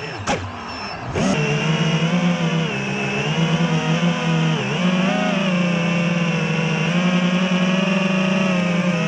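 Quadcopter drone's electric motors and propellers whining. The pitch dips and rises sharply in the first second or so as the throttle changes, then holds steady with small wobbles.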